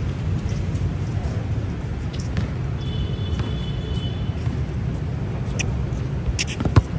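Steady low outdoor rumble, with a brief high squeak about three seconds in and two sharp knocks near the end, a basketball bouncing on the court.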